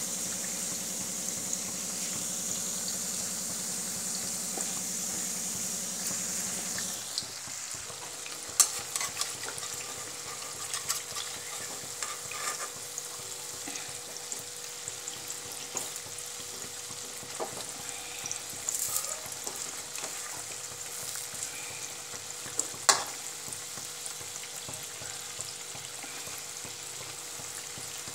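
Gulgule, fritters of wheat flour and jaggery, sizzling steadily as they deep-fry in hot oil in an iron kadhai. The hiss is louder for the first several seconds, then softer. A metal slotted spoon gives a few sharp clicks against the pan, the loudest about a third of the way in and again about four-fifths in.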